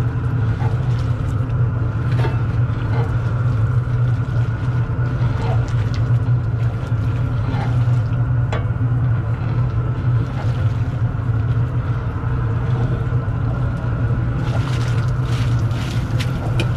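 Propane burner under a large outdoor stew kettle, burning with a steady low rumble. A few light knocks sound over it, and near the end a can of carrots is emptied into the pot.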